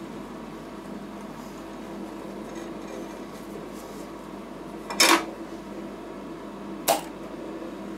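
Steady hum of a rolled ice cream machine's cold plate refrigeration. Two sharp clicks come about five and seven seconds in as a swing-top glass bottle is handled and its stopper opened.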